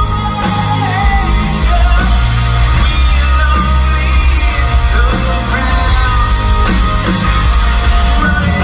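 Live rock band playing at full volume: a male lead singer over electric guitars, bass and drums, heard in a large hall.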